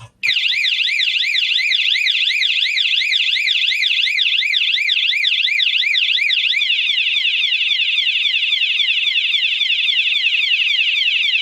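Battery-powered vibration bike alarm sounding its siren after the armed bike is jostled, its vibration sensor set to maximum sensitivity. A loud electronic tone sweeps rapidly up and down, about three to four times a second, then about halfway through changes to a run of quick falling sweeps.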